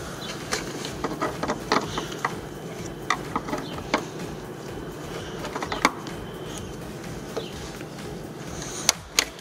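Scattered small clicks and scrapes of a screwdriver prying at a metal retaining clip on a plastic radiator fan shroud, over a steady low hum, with two sharper clicks near the end as the clip comes free.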